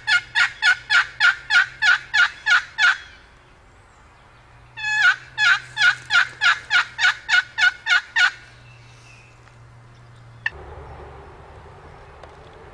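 Turkey yelping: two long runs of loud, evenly paced notes, about four a second, each note dropping in pitch, with a pause of about two seconds between the runs. A single sharp click follows, then only faint background.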